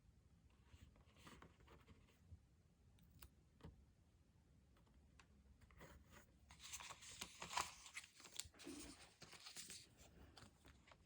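Soft paper-crafting handling sounds: scattered light taps and clicks, then a longer crinkly tearing, peeling rustle of paper or sticker sheets in the second half.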